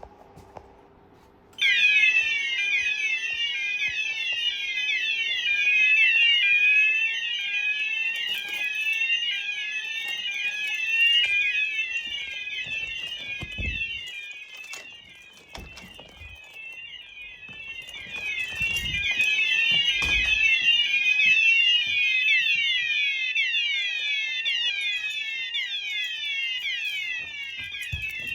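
Fire alarm sounder set off from a manual call point, starting about a second and a half in with a loud electronic tone that sweeps up and down in rapid repeats.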